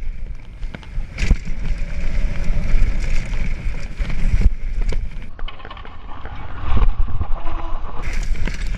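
Downhill mountain bike ridden fast over a rough dirt trail: a steady rumble of wind on the action camera's microphone and tyres on loose dirt, with the bike rattling and knocking sharply over bumps now and then.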